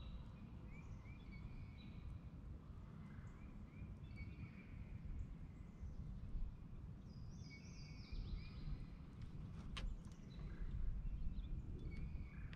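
Small birds chirping and singing in the background over a low, steady rumble of outdoor noise. There is a single sharp click about ten seconds in.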